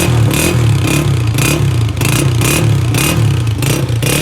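Honda CG125's single-cylinder four-stroke engine running steadily, with a short hissy clatter repeating about twice a second over the engine note.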